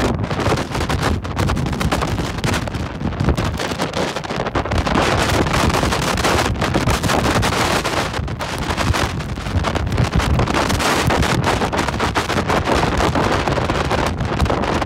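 Strong wind buffeting the camera's microphone in a snowstorm, a loud rough rush with gusts throughout, with the engines of a towing 4x4 and the van it is pulling running underneath.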